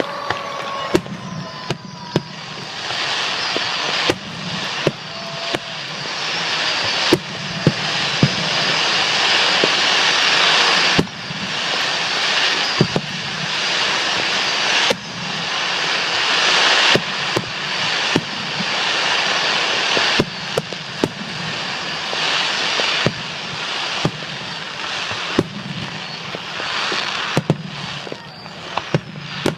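Fireworks display: dozens of sharp shell bursts going off one after another, over a continuous crackling hiss that builds during the first ten seconds and then holds.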